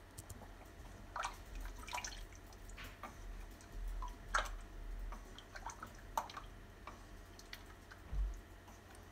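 Wooden spatula stirring a thin, watery curry in a stainless steel pot: irregular wet slops and splashes of the liquid, with scattered light clicks.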